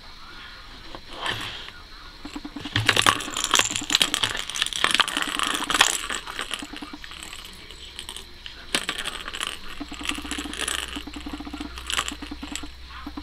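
Plastic ball rolling and rattling inside a circular plastic cat track toy as a cat bats at it. It is a quick run of clicks and taps, busiest from about three to six seconds in and again from about nine to twelve seconds in.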